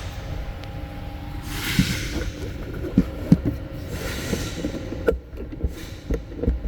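Sharp clicks and knocks of plastic interior trim being pulled and pushed by hand, starting about two seconds in and coming closer together near the end. Under them is a low rumble, with a few short hissing puffs.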